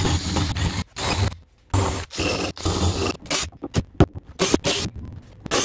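Cordless drill spinning a wire cup brush against the rusty steel fuel tank around the fuel sender, in two runs of a second or so with a brief pause between. In the second half, a quick series of short scrapes and clicks as a screwdriver works at the sender's rim.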